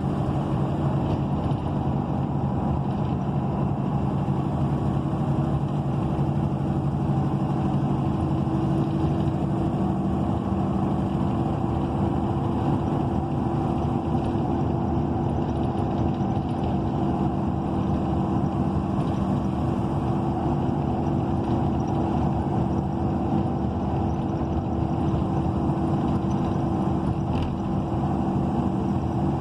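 Cummins Westport ISL G natural-gas engine of an ENC EZ Rider II transit bus running steadily, heard from inside the passenger cabin: an even drone with a few held low hum tones over a wash of road and drivetrain noise.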